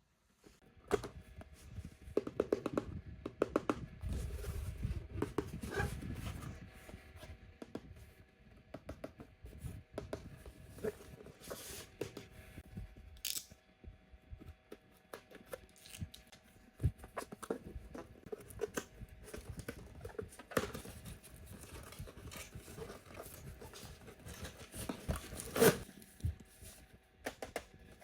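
Toy packaging being opened by hand: tearing and crinkling of wrapping, with many scattered clicks and taps. The busiest stretch comes in the first few seconds, and one sharp loud snap comes near the end.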